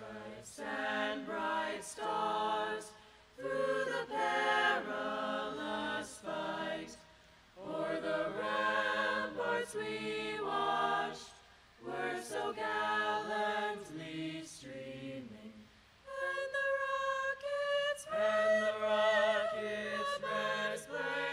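A group of young men and women singing together a cappella, in sung phrases a few seconds long with brief pauses between them.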